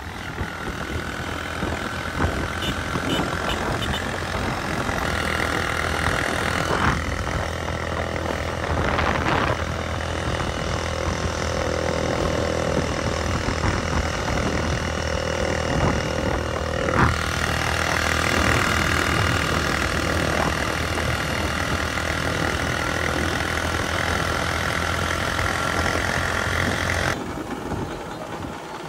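Motorcycle engine running under way with steady rushing road noise; its note changes about halfway through and eases off near the end.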